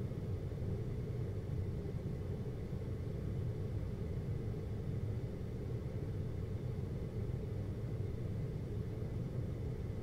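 GoldStar window air conditioner running steadily, a low even hum and rumble with a faint steady high tone above it.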